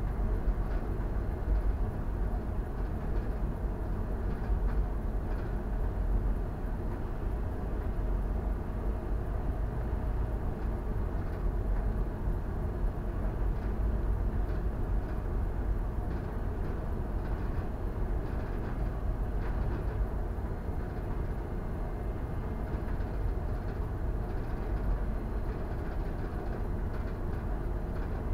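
Steady low rumble of a bulk carrier under way, heard from its bridge: the ship's engine and hull vibration running evenly with no change.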